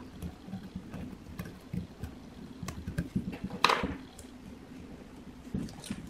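Light rustles, ticks and scrapes of copper magnet wire being pushed into the slots of a fan motor stator with a wooden stick, by hand, during rewinding. One louder, brief scrape about three and a half seconds in.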